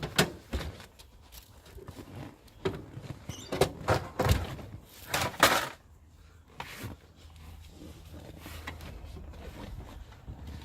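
A run of clunks, knocks and scrapes as a car seat is manoeuvred into place inside a Holden VL Commodore, loudest about four to five and a half seconds in. It then settles to a faint steady low hum.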